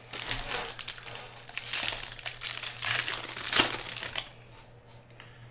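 Plastic wrapping on a pack of trading cards crinkling as it is handled and torn open. The crackle stops about four seconds in.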